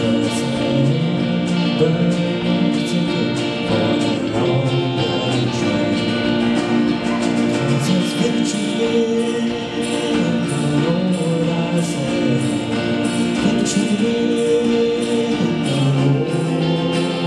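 Live small band playing a country song: electric guitar, acoustic guitar, bass and drum kit, with a sustained lead melody over them.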